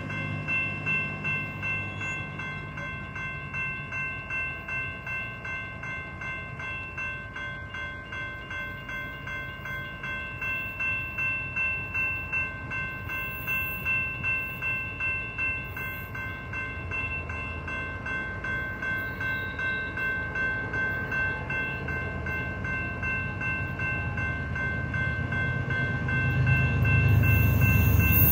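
Railroad crossing bell ringing steadily, about two strikes a second, over the low rumble of an approaching diesel freight locomotive that grows louder near the end.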